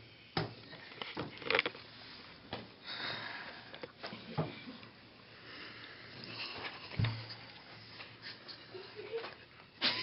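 Sniffing and short breathy snorts through the nose, with scattered soft knocks and rustling.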